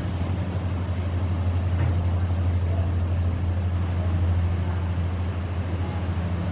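Canadair water bomber's propeller engines droning steadily, swelling slightly around the middle.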